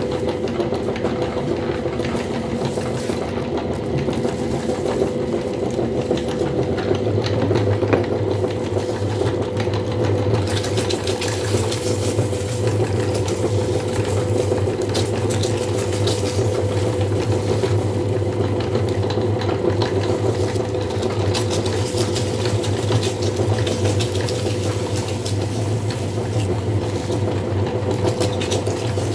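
Electric meat grinder's motor running with a steady hum that deepens about seven seconds in. From about ten seconds in, dense crackling as crisp pumpkin snack chips are crushed and ground to powder in the grinder.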